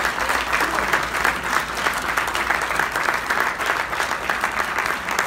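Audience of banquet guests applauding steadily: a dense patter of many hands clapping.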